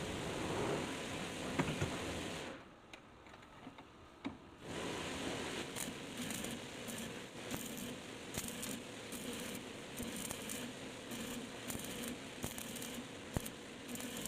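Small metal parts clinking and rattling as they are handled, in irregular short bursts with a break of about two seconds near the start.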